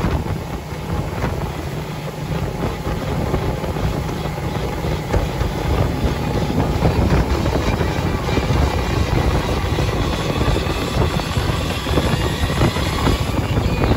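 Motorboat running at speed over open water: a steady engine drone under rushing water and wind buffeting the microphone.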